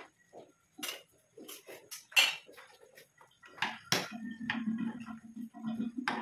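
Metal ladle stirring soup in a cooking pot: irregular clinks and scrapes against the pot, loudest about two seconds in. A steady low hum comes in about four seconds in.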